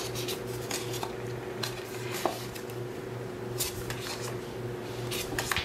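Cardstock pocket cards being handled and shuffled: scattered light clicks, taps and rustles, with a few sharper ones near the end, over a steady low hum.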